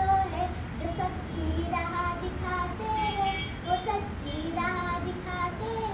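A schoolgirl singing solo, a single young voice holding and gliding between notes.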